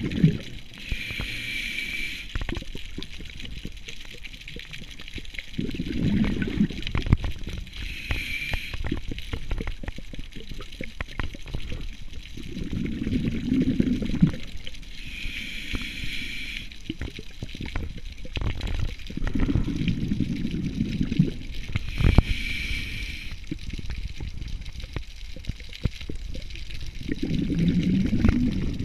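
Scuba diver breathing through a regulator underwater: a short hiss on each inhale, then a low bubbling rumble as the exhaled air escapes. There are four slow breaths, with many small clicks and crackles in between.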